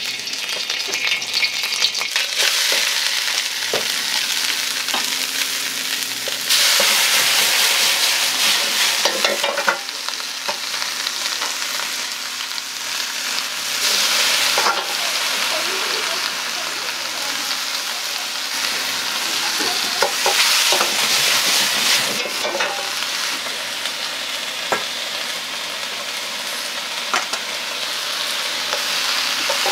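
Vegetables and noodles sizzling in a hot wok while being stir-fried, with a metal ladle scraping and clinking against the pan. The sizzling surges louder a few times.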